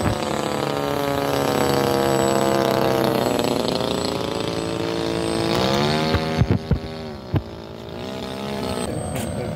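The 30cc gasoline engine of an RC Ultra Stick model airplane running in flight overhead. Its pitch sinks slowly, rises sharply about six seconds in, then drops and fades a little. A few brief low thumps come near the end.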